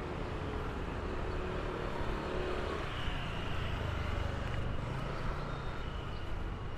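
City street traffic: motor vehicle engines and tyres running close by over a steady urban background hum, a little louder around the middle.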